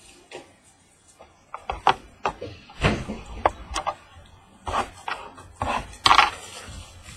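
Card boxes and their packaging being handled: an irregular run of knocks, taps and short rustles, the loudest a little after the midpoint.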